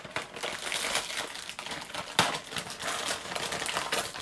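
Wrapping paper being torn and crumpled by hand as a present is unwrapped: a dense crinkling rustle full of small crackles, with one sharper, louder crackle about two seconds in.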